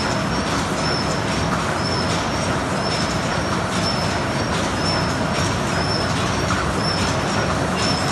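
ZSL-31 automatic paper cup forming machines running: a steady mechanical clatter of cams and forming heads, with a short high hiss and a click repeating about every two-thirds of a second.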